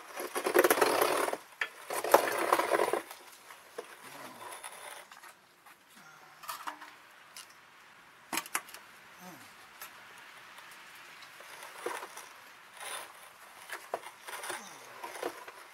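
Two loud bursts of rustling noise in the first three seconds, then light clicks, taps and scraping from a small hand tool working JB Weld epoxy onto a leaking exhaust flex pipe.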